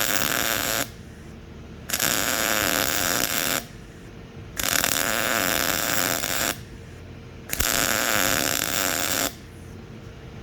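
Metalworking on steel sheet: a cutting or welding tool runs in four bursts of about two seconds each, with short pauses between.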